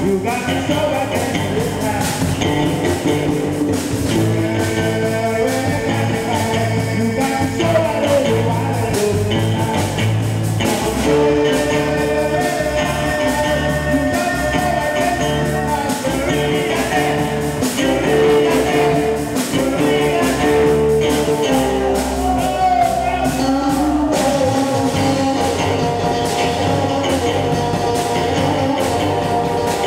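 Live rock and roll band playing amplified: electric guitars, bass guitar and drum kit.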